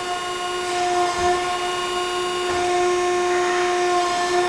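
Hydraulic pump of an Ermak CNC hydraulic press brake running with a steady whine as the ram is cycled through its forming stroke from the foot pedal, with a few faint knocks.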